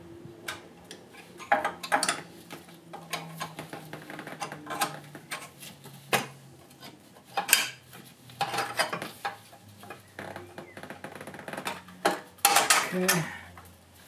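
Metal carburetor parts and fittings clicking and clanking as the carburetor is fitted back onto a gas golf cart engine by hand: scattered sharp clicks and knocks, with a few louder clanks.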